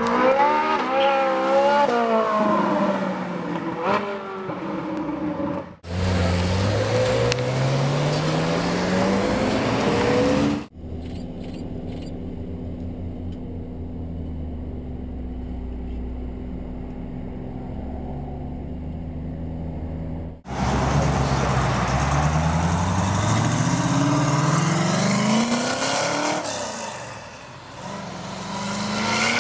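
A string of separate clips of sports car engines: revving up and down through gear changes, accelerating with the revs climbing, running steadily at low revs, and finally a Ford GT40's V8 revving up through several gears as it pulls away.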